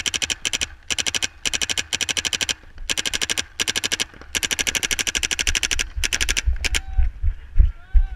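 Paintball marker firing in rapid strings of shots, roughly a dozen pops a second, stopping and starting several times, with one longer string a little past the middle. A few dull thumps near the end.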